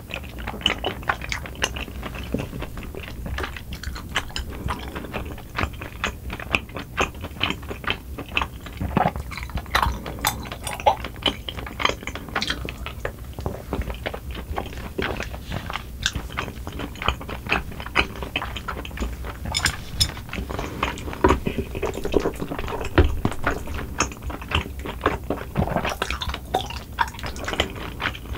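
Close-miked chewing of chewy cream-sauce tteokbokki and bunmoja (thick sweet-potato starch noodles), with many short mouth clicks throughout.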